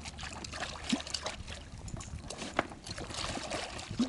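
A hooked zander splashing at the water's surface beside an inflatable boat as it is landed by hand. Water trickles and sloshes, with a few sharp knocks and clicks, the strongest about a second in and again past halfway.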